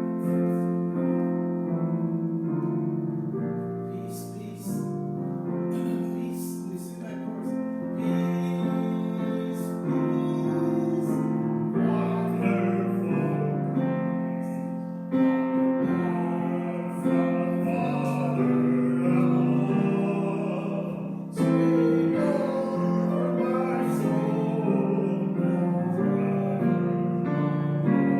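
Keyboard music: sustained chords held for a second or two each, moving from chord to chord.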